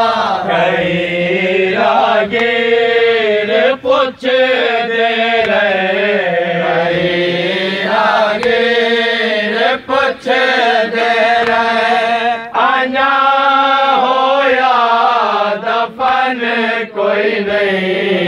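A man's voice chanting a noha, a Shia mourning lament, in long drawn-out lines whose pitch bends and is held.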